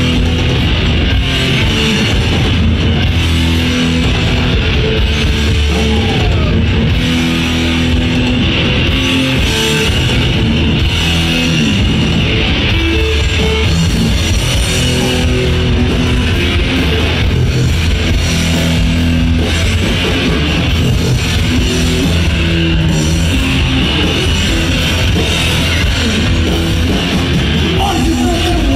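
Crossover thrash band playing loud and live: distorted electric guitars, bass and drums. Right at the end a shouted vocal comes in.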